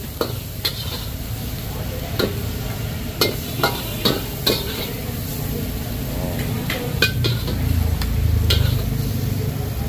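Stir-fried rice noodles (hủ tiếu xào) sizzling in a wok while a metal spatula scrapes and knocks against the pan at irregular moments. A low rumble runs underneath and grows louder near the end.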